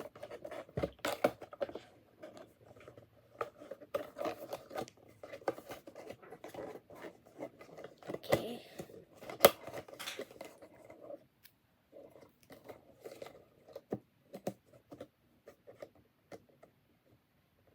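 Packaging being handled and opened: scratching, scraping and tearing noises with many small clicks, dense for the first ten seconds or so and sparser after.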